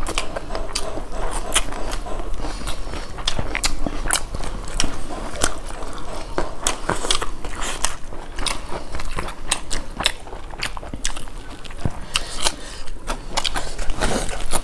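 Close-miked eating of rice and curry by hand: chewing with many sharp, wet mouth clicks in quick, irregular succession.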